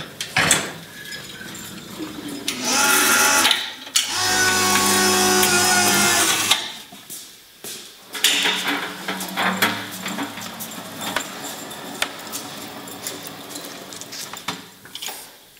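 A small electric motor whining in runs, the longest from about four to six and a half seconds in, with scattered clicks and knocks around it.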